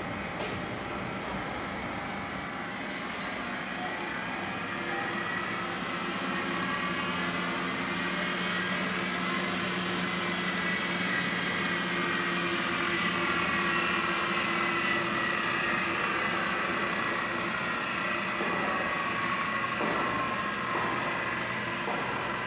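Southwest Trak bed mill's spindle motor and variable-speed drive running, its whine slowly rising and then falling in pitch as the speed-change handwheel on the head is turned.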